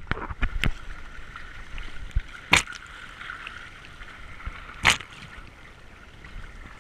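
Water rushing and splashing along the hull of a Hobie sailing kayak under sail, with two sharp splashes against the hull, about two and a half seconds in and again near five seconds.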